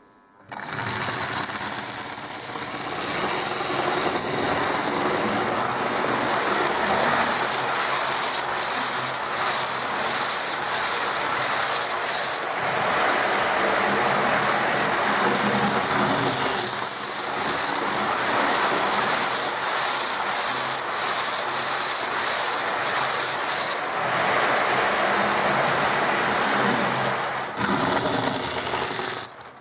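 Hornby 0-4-0 saddle tank model locomotive running steadily round the track with ten coaches in tow, its maximum load. The sound starts abruptly about half a second in.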